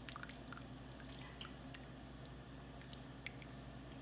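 Faint scattered ticks and crackles from a pot of water with chicken heating on the stove, over a steady low hum.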